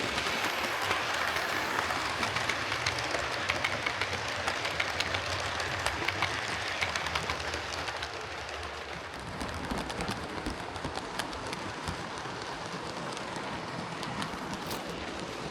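Hornby King Class OO gauge model steam locomotive running on track: a steady whirr from its electric motor and gearing, with a fast patter of fine clicks from the wheels on the rails.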